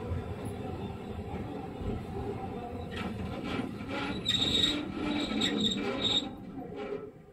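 Sapporo streetcar M100-type tram running on its rails: a steady low rumble of wheels and motor, with high-pitched wheel squeal coming in a few seconds in and stopping near the end.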